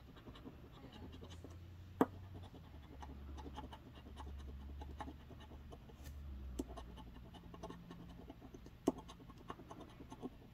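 Coin scratching the coating off a scratch-off lottery ticket: many short, faint scraping strokes, with two sharper clicks, one about two seconds in and one near the end.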